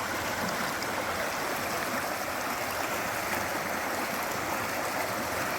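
Mountain brook flowing over rocks, a steady babble of running water.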